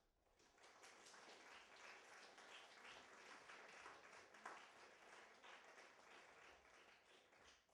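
Faint audience applause of many hands clapping, swelling within the first second and dying away near the end.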